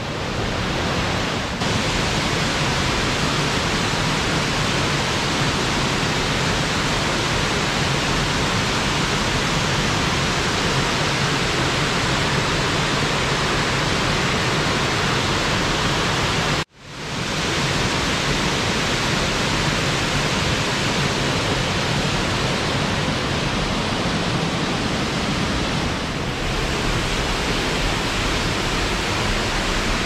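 Waterfall and cascading mountain-stream water making a steady, loud rushing noise. It drops out abruptly for a moment about 17 seconds in, then carries on the same.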